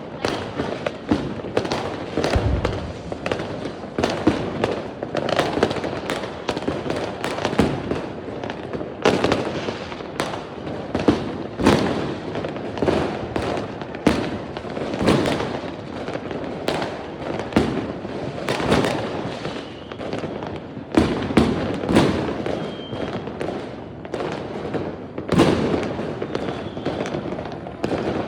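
A continuous barrage of fireworks: many overlapping bangs and crackles, with louder booms every few seconds.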